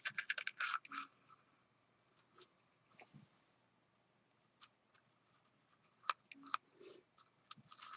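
Scattered small clicks and light handling noises, clustered in the first second and sparse afterwards: small rotary-tool accessories and their packaging being handled.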